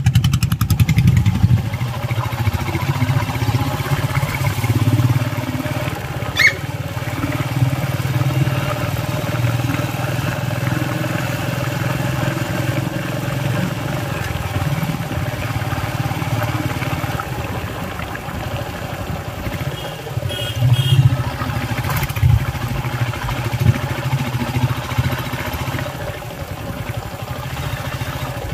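Steady engine and road noise of a moving vehicle heard from on board, a low hum that holds throughout. A short high rising chirp comes about six seconds in, and a sharp click near the twenty-second mark.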